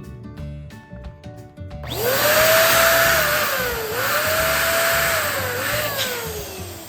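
Electric balloon inflator switched on about two seconds in, blowing air with a motor whine that rises, dips twice, then falls as the motor spins down near the end. Background music plays throughout.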